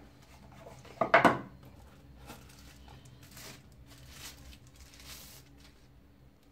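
A cardboard box lid set down on a hard tabletop with a sharp double knock about a second in, then soft crinkling and rustling of a plastic sleeve as a phone is pulled out of it.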